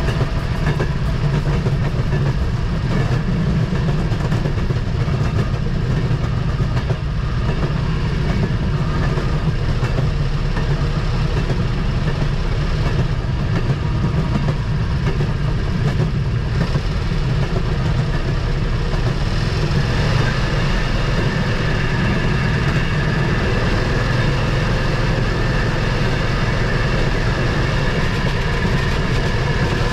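Rail motorcar (track speeder) running steadily along the track: its small engine drones under the rider, mixed with the noise of the wheels on the rails. The sound takes on a stronger higher-pitched edge about two-thirds of the way through.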